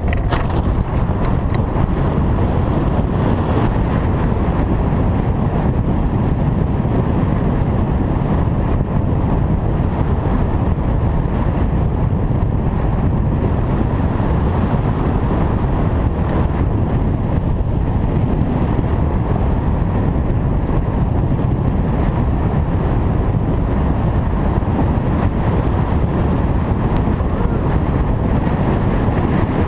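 Steady, loud wind rushing over a hang glider's frame-mounted camera microphone in flight, strongest in the low end.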